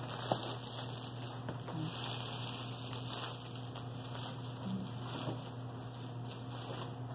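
Light crinkling and crackling of plastic wrap being pulled off a kit box, over a steady low electrical hum, with a couple of small clicks near the start.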